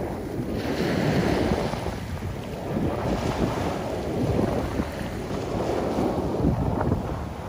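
Small waves washing in over a coral-gravel beach, with wind buffeting the microphone in a steady low rumble. The waves hiss up about half a second in and again around three seconds.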